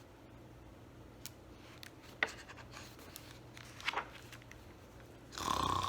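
Paper picture-book pages being handled and turned: a light tap and soft paper rustles, then a louder page swish near the end.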